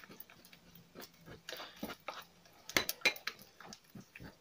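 Metal spoon scraping and clinking irregularly against a glass bowl as a thick, sticky corn-starch and PVA-glue paste is stirred and worked to break up its lumps.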